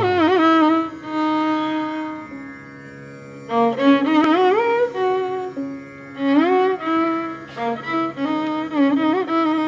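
Background music: a single melody line with sliding, ornamented notes over a steady drone.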